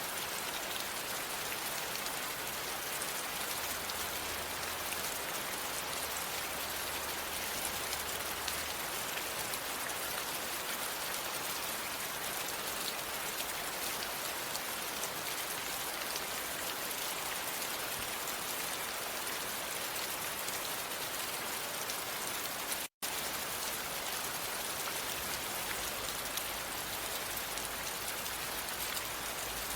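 Steady rain falling, a dense even patter of raindrops. The sound cuts out for an instant about two-thirds of the way through, then carries on unchanged.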